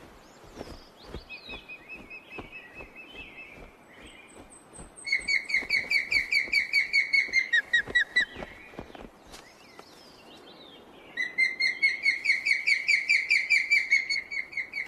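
Female osprey giving impatient food-begging calls: a few softer calls, then two long runs of rapid, sharp whistled chirps, about six a second, with a short pause between them.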